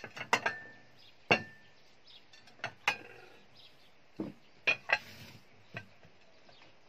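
Dinner plates clinking as they are lifted off a stack and set down one by one on the table: a series of sharp clinks, a few with a short ring.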